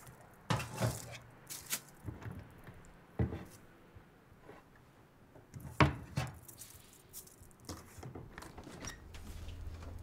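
Dishes and cutlery clinking and clattering at a kitchen sink as they are washed and set down, in irregular knocks, the loudest about six seconds in. A steady low hum starts near the end.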